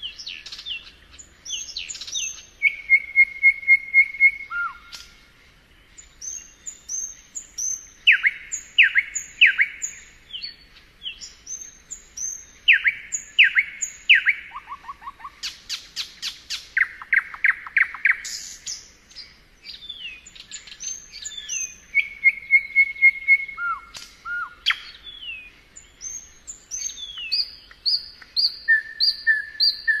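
Nightingale singing: a string of varied phrases made of repeated sharp notes, fast trills and held whistles, with short pauses between phrases.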